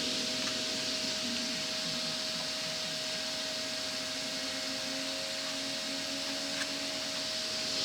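Steady hiss with a constant faint hum, like a fan or air mover running, and a single light click near the end.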